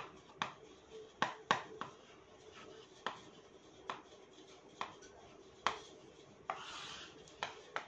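White chalk writing on a green chalkboard: irregular sharp taps and short scratches as the letters are written, with one longer scrape about three quarters of the way in.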